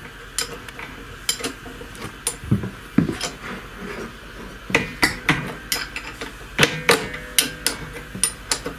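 Irregular metallic clicks and knocks of a hand socket wrench being fitted to and worked on the 13 mm nut at the end of a walk-behind tractor's gearbox shaft. The knocks come thicker and louder in the second half.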